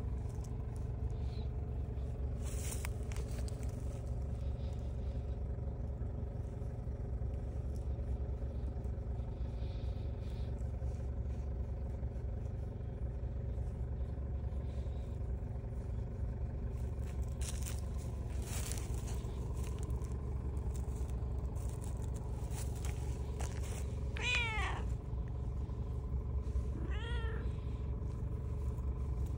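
A calico cat meows twice near the end, two short calls a couple of seconds apart, over a steady low rumble.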